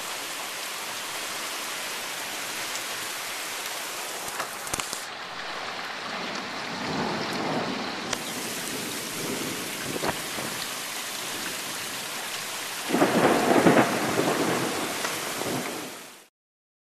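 Heavy rain pouring steadily in a severe thunderstorm, with thunder. About thirteen seconds in, the storm noise surges louder for about three seconds, then the sound cuts off.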